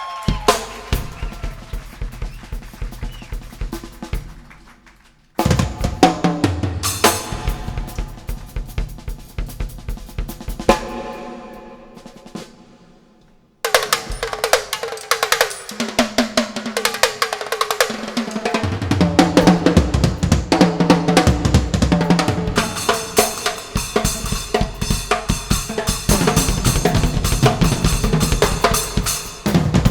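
Drum-heavy music with a strong bass beat played through a sound system; the track drops out briefly and a new one cuts in abruptly twice, about five seconds in and again about thirteen and a half seconds in.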